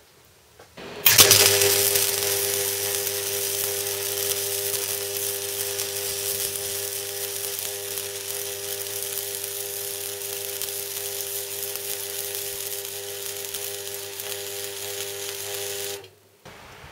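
MIG welder running flux-cored wire at electrode positive: the arc starts about a second in, burns with an even noise and a steady hum under it for about fifteen seconds, and cuts off suddenly near the end. At this reversed polarity the arc throws an awful lot of spatter.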